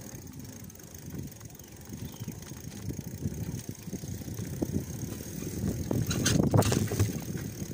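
Mountain bike rolling fast over bumpy grass, with an irregular rumble and rattling knocks from the frame and handlebar. It gets louder with harder jolts about six seconds in.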